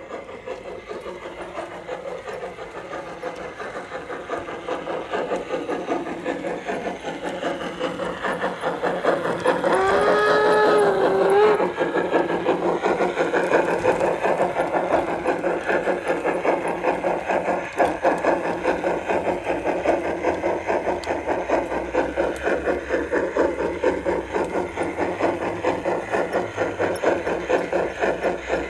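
Garden-railway model steam locomotive hauling passenger coaches, with a rhythmic chuffing that grows louder as the train approaches. About ten seconds in it gives one whistle lasting about two seconds, its pitch rising and wavering.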